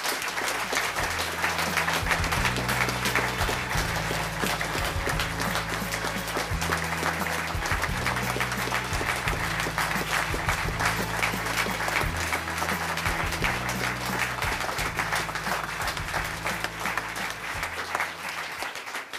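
Audience applauding steadily, dense clapping that goes on throughout, with music of sustained low notes that change every second or two playing underneath.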